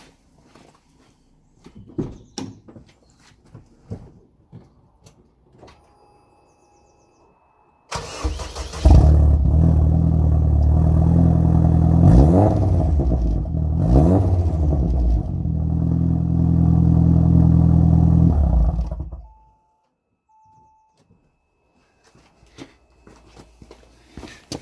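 A 2004 Saab 9-3 Aero's 2.0-litre turbocharged four-cylinder engine is started about eight seconds in and runs with its exhaust note, revved up briefly twice, then is switched off about nineteen seconds in. A few light clicks come before the start, and two short beeps follow the shut-off.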